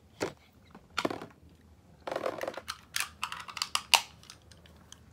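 Toy Beyblade spinning tops and their plastic launcher: a couple of sharp plastic clicks, then from about two seconds in a launch followed by a run of clattering knocks as the tops hit the plastic stadium and each other.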